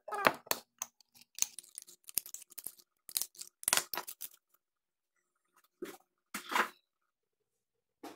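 A small glass bottle handled and moved about on a counter: a quick string of clicks, knocks and rustles over the first four seconds or so, then a couple of short handling noises about two seconds later.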